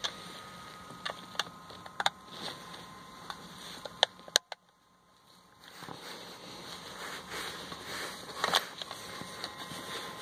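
Scattered clicks and rustling from handling a plastic OBD diagnostic plug and its cable as they are fitted to the car's diagnostic socket. The sharpest clicks come about 4 seconds in and near the end.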